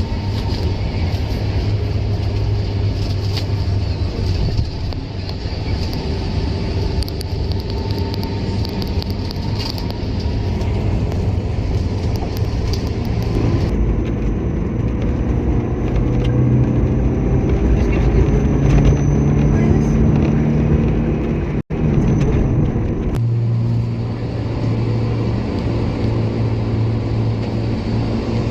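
Car driving on the road: a steady engine and road rumble, with the engine note rising as it speeds up in the middle. A momentary gap in the sound about two-thirds of the way through.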